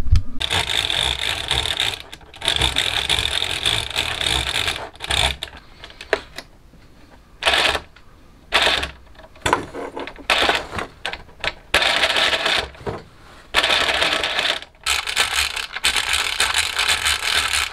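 Plastic rowboat model's rubber-band-driven rowing mechanism clattering as it is tried out, in irregular bursts of a second or two with short pauses between them.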